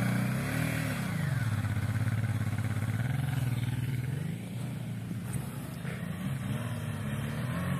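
Suzuki V-Strom's V-twin engine revving under load as the heavy bike churns through deep, loose sand: one rev rising and falling about half a second in, then running steadier and fading as the bike pulls away.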